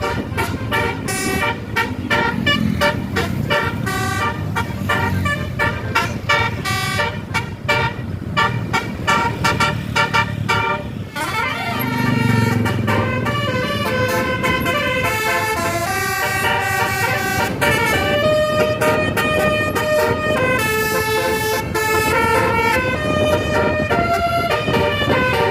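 Bus telolet horn, a set of tuned air horns playing a melody: a quick run of short notes, then from about halfway longer held notes in changing chords.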